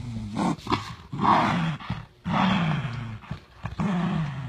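Dogs growling in a tug-of-war over a rope toy: about four long, low growls one after another, with a harsher, noisier snarl about a second in.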